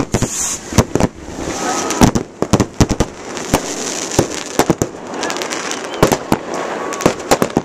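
Fireworks going off at close range: a rapid, irregular run of sharp bangs and cracks with crackling between them.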